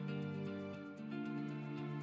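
Instrumental background music with sustained notes that change about a second in.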